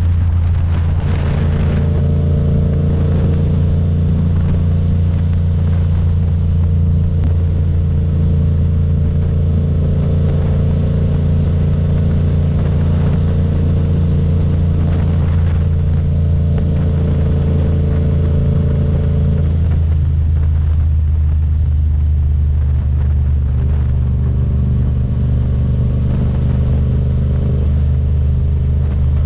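Yamaha FZ-07's 689 cc parallel-twin engine running at a steady note, which settles slightly lower about two-thirds of the way through.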